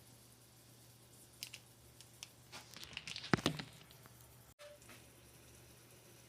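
A few sharp clicks, then a short burst of rustling and clicking, as of something being handled, over a low steady hum.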